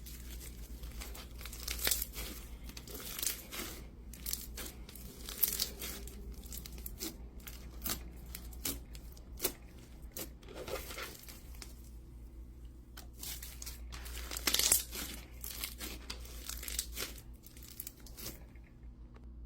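Hands stretching, folding and squeezing a gravel slime, with irregular sticky crackling and crinkling from the slime and the small rock pieces in it.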